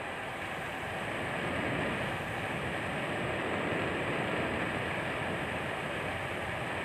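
Diesel generator running, heard as a steady, even machinery noise that fills its engine room.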